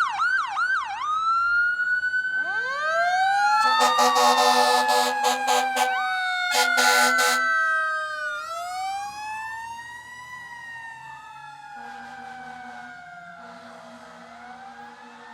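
Fire engine's sirens: an electronic siren yelping fast, then switching to a slow rising and falling wail, together with a Federal Q2B mechanical siren held near its top pitch. Two loud air horn blasts come about four and seven seconds in. The sirens then fade as the engine pulls away, with fainter horn blasts near the end.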